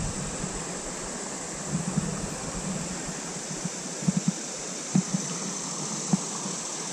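Steady rush of river water flowing over shallow riffles, with a few short soft knocks between about four and six seconds in.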